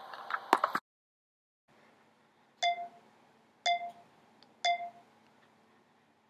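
Three short, identical electronic beeps, evenly spaced one second apart, over faint hiss. A few small clicks come just before them.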